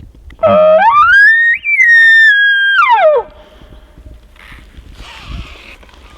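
An elk bugle: one loud call that rises from a low start to a high held whistle, then slides back down, lasting about three seconds.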